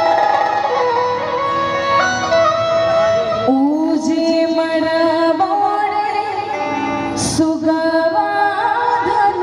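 Live Bhojpuri Chhath devotional song over a PA system: a woman singing long held notes with instrumental accompaniment.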